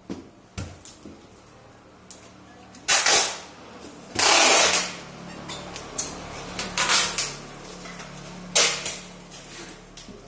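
Packing tape being pulled off its roll and pressed onto a cardboard box: four loud noisy tearing pulls, the longest about half a second, with light taps and rubs of hands on the box between them.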